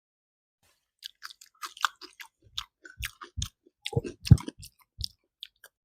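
Close-miked mouth sounds of a person chewing a mouthful of food: a run of wet clicks and smacks that starts about a second in, with a few louder low thuds in the middle.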